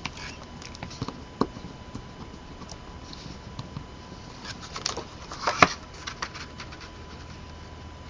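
Paper and cardstock being handled and pressed down on a craft mat while adhesive is applied: scattered light rustles and taps, with a cluster of sharper clicks about five to six seconds in.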